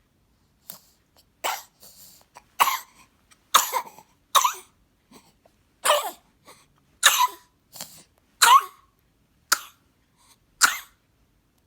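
A four-month-old baby coughing: about ten short coughs, roughly a second apart, some with a little voice in them.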